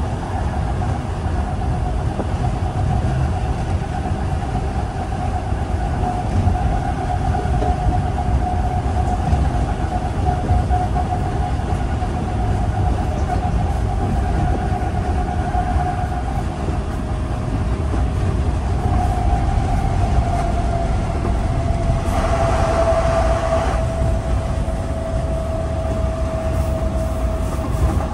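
ÖBB class 4020 electric multiple unit under way, heard from inside the passenger car: a steady rumble of the running gear on the track, with a steady whine that sinks slightly in pitch in the second half. About three-quarters of the way through, a brief hiss rises over it for a couple of seconds.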